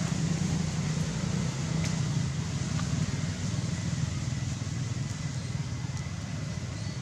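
Steady low hum of a running engine, even throughout, with a few faint clicks.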